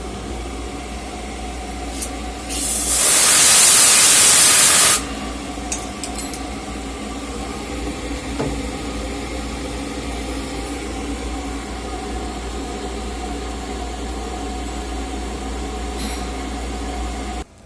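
CNC machine running while machining a fishing sinker, a steady hum with several fixed tones. About two and a half seconds in, a loud hiss lasts about two seconds, then stops abruptly.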